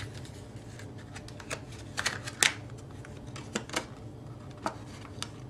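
Hands handling laptop memory modules and small plastic parts: scattered light clicks and rustles at an uneven pace, over a faint steady hum.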